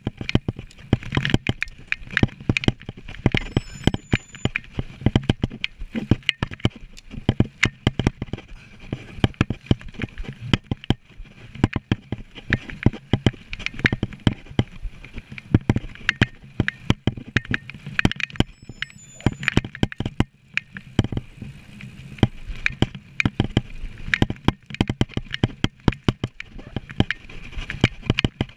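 Mountain bike rattling over a rough dirt trail at speed: a dense, irregular run of knocks and clatter from the frame and chain jolting over bumps, over tyre and wind noise.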